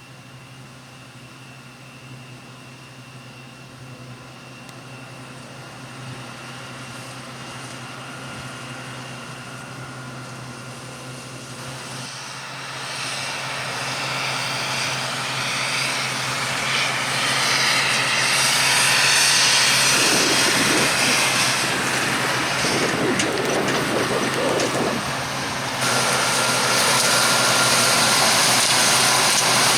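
Harvest machine's engine running steadily, growing louder over the first eighteen seconds or so as it draws near, with a jump in level about twenty-six seconds in.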